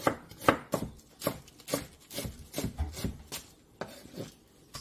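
Chef's knife slicing an onion on a wooden cutting board: a quick run of knife strokes hitting the board, about three a second, growing sparser and quieter toward the end.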